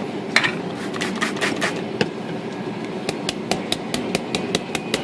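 A scrub brush clicking and tapping in quick, irregular strokes, several a second, as it is knocked clean and worked over the painted typewriter lid.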